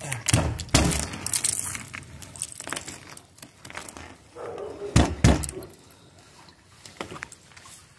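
A glaze of ice cracking and snapping as fingers break it on a plastic garbage bin lid, with a run of sharp cracks in the first second or so. Two heavy, dull thumps come about five seconds in.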